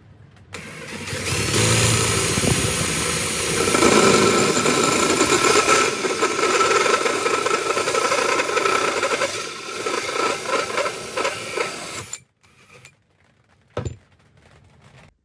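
DeWalt 18V XR brushless cordless drill driving a hole saw through plywood: the motor whine and the grinding of the saw teeth in the wood run for about eleven seconds, then stop suddenly as the saw breaks through. A brief short run of the drill follows, then a single knock near the end.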